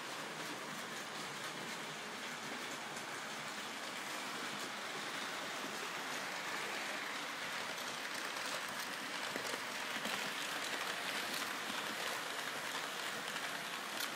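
Märklin HO model trains running on the layout's metal track: a steady rushing hiss of metal wheels and the centre-rail pickup shoes on the rails, growing a little louder around the middle.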